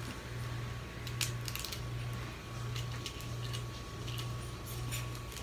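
Small crackles and clicks of a steamed blue crab's shell being broken and picked apart by hand, scattered and irregular, over a steady low hum.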